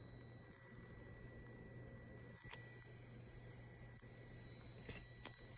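MSI cooling unit giving off a faint, steady high-pitched electronic tone over a low hum. This is the noise it makes when its lights turn on.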